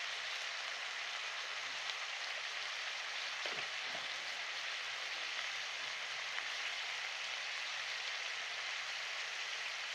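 Chicken and masala frying in hot oil in a karahi, with a steady sizzling hiss after the water has cooked off.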